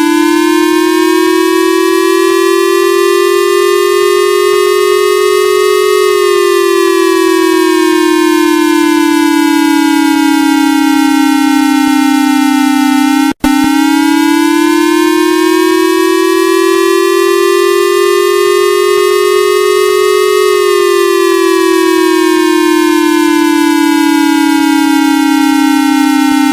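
Loud electronic alert siren: a single buzzy tone rising slowly for about six seconds, then falling for about seven, cutting out for an instant about halfway through and repeating the same rise and fall.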